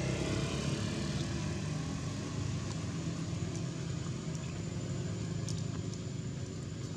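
Steady low rumble of outdoor background noise, with a faint high steady tone above it.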